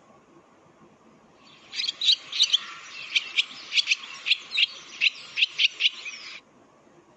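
A recorded bird song: a series of sharp, high notes, about three a second, starting about a second and a half in and ending abruptly some five seconds later.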